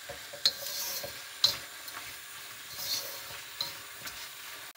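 Vegetables stir-frying in a hot pan: a steady sizzle, with the stirring utensil scraping and knocking against the pan a few times.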